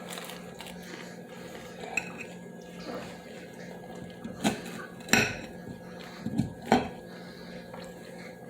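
Cutlery clinking and tapping against a plate, with a few sharp clinks about four and a half to seven seconds in, over a faint steady hum.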